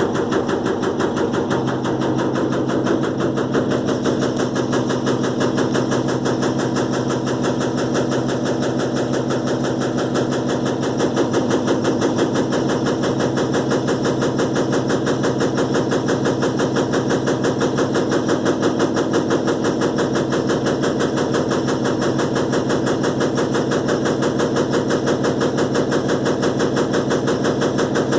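Electrolux LTE12 washing machine in its spin cycle: a loud, fast, steady rattling as the spinning tub shakes on its suspension with an unevenly bunched load. A low hum under it fades out about twenty seconds in.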